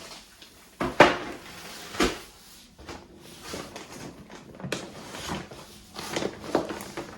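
Grocery packages being handled: irregular rustling with short knocks as items are set down, the sharpest knock about a second in and another about two seconds in.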